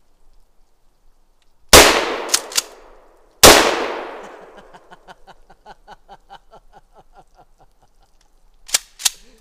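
Two handgun shots about a second and a half apart, each echoing off through the woods, followed near the end by two sharp clicks.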